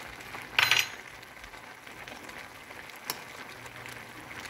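Pan of pinto beans and greens simmering on low heat, a steady soft bubbling hiss. A brief loud rustling noise comes about half a second in, and a single light click, like a fork touching the pan, about three seconds in.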